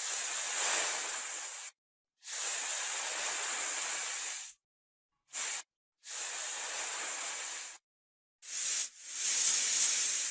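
Snake hissing in a series of separate hisses, about five, most lasting one to two seconds and one only a fraction of a second, each breaking off cleanly; the last trails away.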